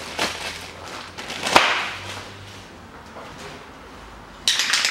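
A single sharp click about a second and a half in. Near the end an aerosol can starts spraying with a steady hiss, putting lubricant on the thread of a new stabilizer link.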